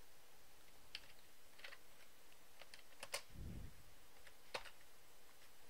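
Faint, scattered keystrokes on a computer keyboard as a terminal command is typed, with a soft low bump a little past halfway.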